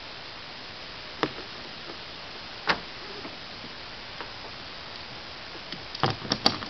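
Metal ratchet tie-down buckle clicking as its strap is threaded and handled: two sharp clicks a second and a half apart, a fainter one later, then a quick run of clicks and rattles near the end.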